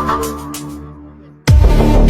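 Music only. One track fades out over the first second or so, and about halfway through a loud electronic track with heavy bass and falling pitch sweeps cuts in abruptly.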